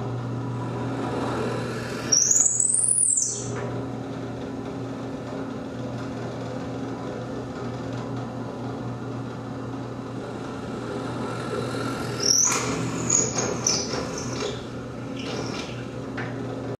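Benchtop drill press motor running with a steady hum while its bit bores into a wooden top twice, about two seconds in and again about twelve seconds in. Each cut adds a brief high-pitched sound that rises and then falls.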